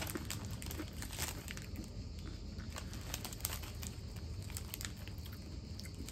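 Someone chewing crunchy Mikado-style chocolate biscuit sticks: scattered short crunches and crackles over a steady low hum.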